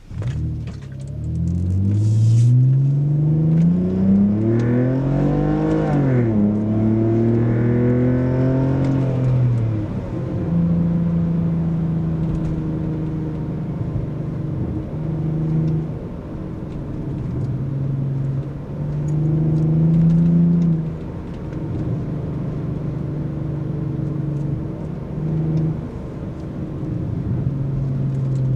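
BMW E46 Touring's naturally aspirated inline-six running through a muffler-delete exhaust (straight-through stainless pipe into twin tips) while driving. The engine revs up twice, the pitch rising and then dropping, and then runs at steadier speeds with small rises and falls.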